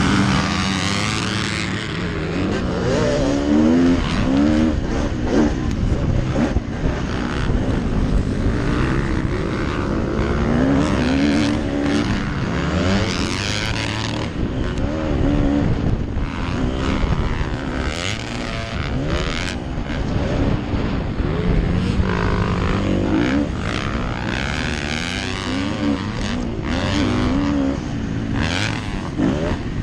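Motocross dirt bike engine heard from the rider's helmet camera, its pitch repeatedly rising and falling as the throttle is opened and shut through the turns and straights, with other bikes close by. Rushes of wind noise over the helmet come and go.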